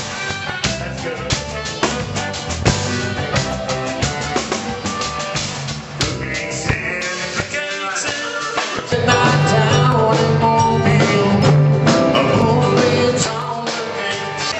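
Band music with a drum kit and guitar, getting louder and fuller about nine seconds in.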